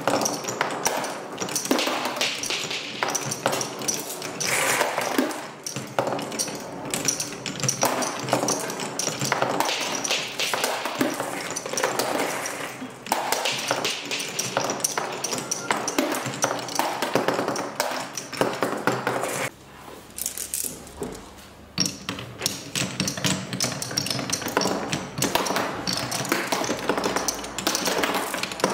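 Many marbles rolling and clattering down a Hape Quadrilla wooden marble run, a continuous stream of quick clicks and knocks on the wooden rails and spirals. It thins out briefly about two-thirds of the way through, then picks up again.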